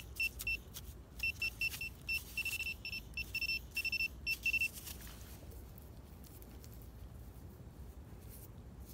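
Minelab Equinox metal detector sounding a target: a run of short, high-pitched beeps in quick, uneven succession as the coil is swept back and forth over the spot. The beeps stop about five seconds in.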